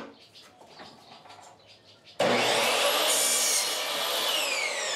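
Sliding miter saw switched on about two seconds in, its motor whining up to speed as the blade cuts a pine 1x10 board. Near the end the trigger is released and the motor winds down with a falling whine.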